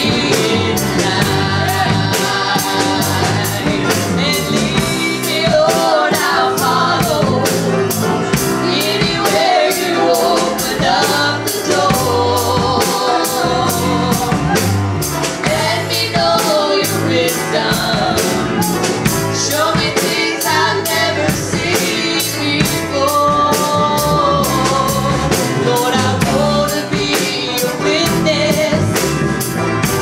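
Live gospel music: a grand piano and a drum kit keeping a steady beat, with singing over them.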